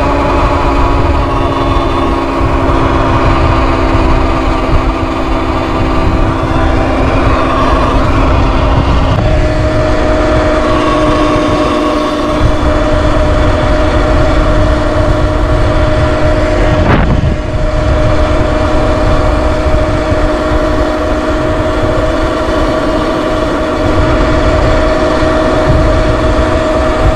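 Sur Ron X electric dirt bike riding along at speed, its motor and drive whining steadily under heavy wind rush on the microphone. The whine's pitch changes once partway through.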